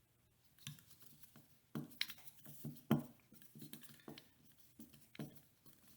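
Small metal lock parts clicking and knocking as the core of a Medeco 54-Series padlock is handled and fitted back together by hand. The clicks are irregular, with the sharpest about two and three seconds in.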